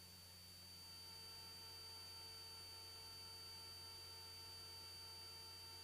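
Near silence: only a faint steady electrical hum with a thin high-pitched tone, getting slightly louder about a second in.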